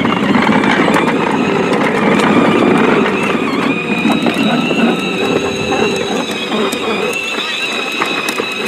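Battery-powered electric motor and gearing of a converted ride-on toy bulldozer running on test: a dense, continuous gear rattle under a steady high whine, easing slightly in loudness toward the end.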